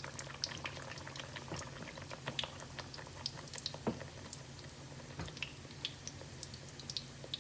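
Guyanese bakes (dough rounds) frying in hot oil: a steady sizzle with many scattered small pops and crackles.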